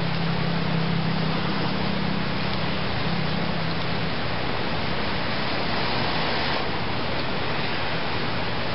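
A steady, even hiss that never lets up, with a low hum underneath that fades out about four seconds in.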